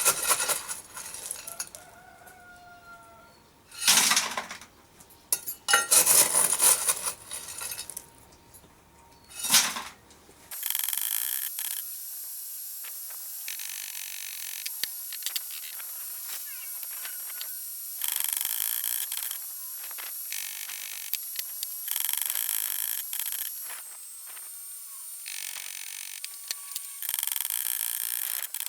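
Workshop sounds: several loud rushing bursts of noise in the first ten seconds. After an abrupt change, a steady high hiss with scattered light metallic clicks.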